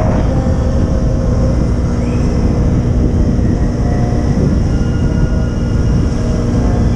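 Motorcycle riding at a steady speed: engine running under wind noise on the bike-mounted microphone, a constant low rumble.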